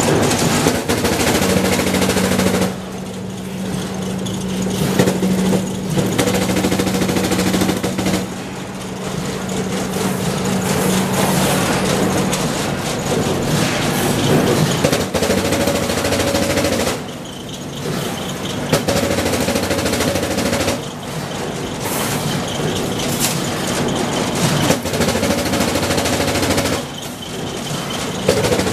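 Factory machinery running with a steady hum under a dense, rapid clatter of metal, with steel wire rack grids rattling against each other as they are handled. The level drops for a moment several times, then picks up again.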